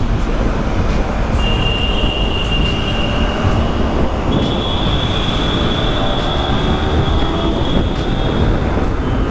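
Yamaha R15 V3 motorcycle (155 cc single-cylinder) running at speed through an underpass, with heavy wind rush on the microphone. A steady high whine comes in about a second and a half in, steps up in pitch midway and stops near the end.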